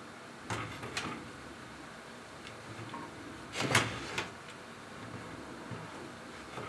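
Short knocks and clinks of tableware as sliced cucumber and a tomato are set out on a plate: a few light ones in the first second and a louder one a little past the middle.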